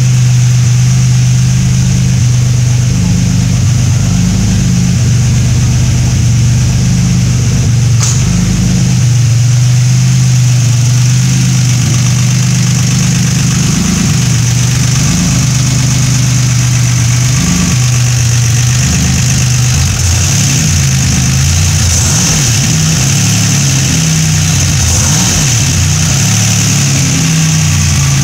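Turbocharged car engine idling unevenly after a cold start, its low note stepping up and down. A steady high-pitched whine runs over it.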